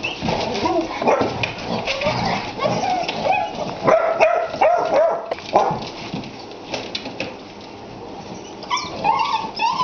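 Basset hound puppies play-fighting, with yips, whimpers and play barks over many short clicks and scuffles. There is a quieter stretch in the middle, then a quick run of high yelps near the end.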